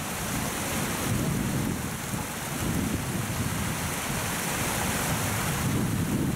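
Water spilling over a small concrete weir in a river: a steady rushing splash with a low rumble.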